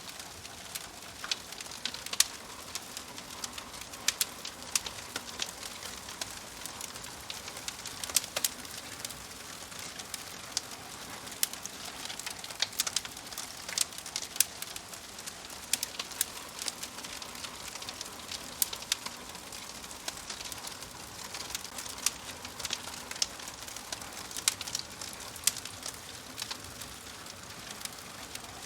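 Wood fire burning in a fireplace: irregular sharp crackles and pops of burning logs over a steady soft hiss.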